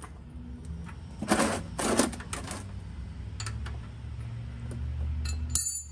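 Ratcheting wrench clicking in quick runs as it works the oil drain plug loose, the loudest runs about a second in, then scattered single clicks and a sharp metallic rattle near the end.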